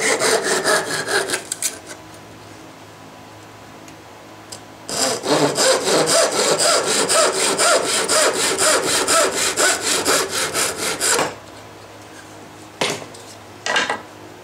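Thin Japanese handsaw cutting kerfs through a plywood jig block in quick, even back-and-forth strokes. There are two spells of sawing: a brief one at the start, then a longer run after a pause of about three seconds. Two short knocks follow near the end.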